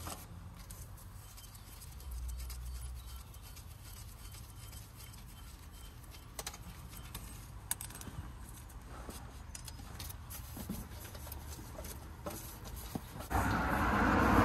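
Faint, scattered clicks and metal clinks of hand tools on the clutch pressure-plate bolts over a low hum. About a second before the end a loud, steady noise starts and keeps going.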